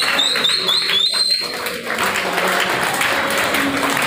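A group of people clapping, with a run of five or six short, high whistle-like chirps in the first second and a half.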